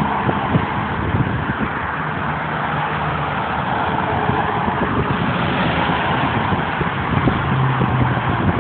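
Steady highway traffic noise: tyre roar and engine hum of semi-trucks and cars going past, with a low truck engine drone that swells and fades a couple of times.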